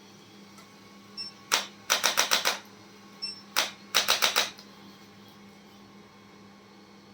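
Sharp, rapid clicks in two bursts. Each burst is a single click followed by five quick clicks, about six a second.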